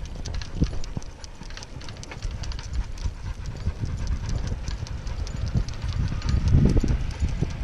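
Footsteps on a concrete sidewalk while walking a dog on a leash: a steady run of thuds and clicks, with rumble and rubbing from a body-mounted camera.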